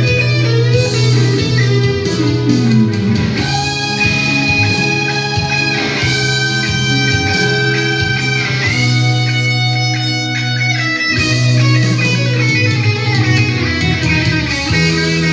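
Austin Stratocaster-copy electric guitar played through a Fender Bullet amplifier, picking a sustained, melodic lead line. About two to three seconds in, one note slides down in pitch.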